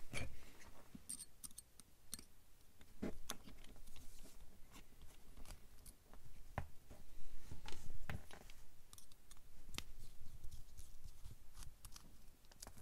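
Scattered faint clicks and light taps of a 1.5 mm hex driver and tiny screws as the stock motor is unbolted from an Axial SCX24 micro crawler's transmission, with the small parts handled in the fingers.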